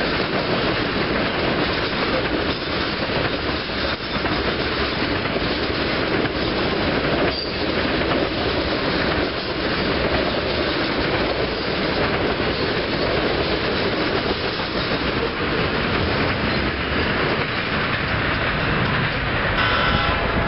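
Norfolk Southern freight train's cars rolling past close by: a steady, loud rolling noise of steel wheels on rail, with occasional knocks and a short high tone near the end.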